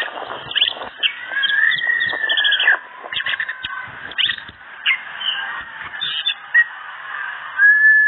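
Orange-headed thrush singing a rapid, varied song of short chirps, trills and whistles, with a long arching whistle about two seconds in and a held whistle near the end. This is the continuous, nonstop 'gacor' song of a bird in the 'teler' state.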